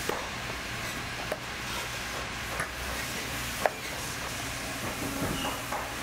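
Scattered light clicks and taps of hand tools working on a leather work boot being torn down, one sharper click a little past halfway, over a steady low hum.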